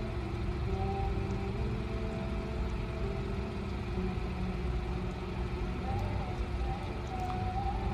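Steady low vehicle rumble, with faint wavering tones above it.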